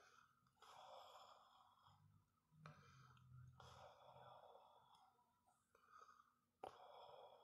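Near silence with a few soft breaths or sighs close to the phone's microphone, three puffs about a second long each.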